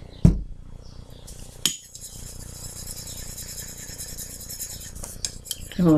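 Paintbrush stirring watered-down ocher acrylic paint in a small container, with light clinks of the brush against the container and a steady scraping, after a thump about a quarter second in.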